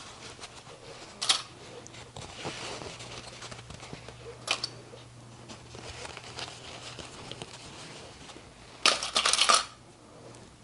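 Plastic sewing clips clicking as they are snapped onto layered fabric. There is a single click about a second in, another about four and a half seconds in, and a quick run of several clicks near the end, which is the loudest part.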